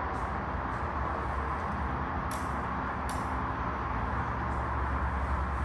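Steady low background hum and rumble, with two short high clicks close together a little before the middle.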